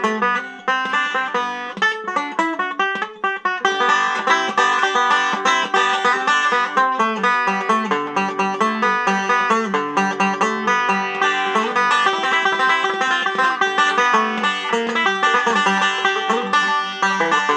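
Banjo picked fast, a steady run of quick plucked notes that gets fuller from about four seconds in. The player is a beginner rushing the tempo.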